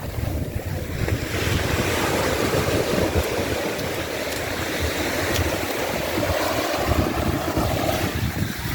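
Ocean surf washing on the shore, a rushing noise that swells about a second in, with wind buffeting the microphone in a gusty low rumble.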